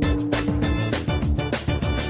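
Background music with a steady drum beat of about four hits a second over a bass line.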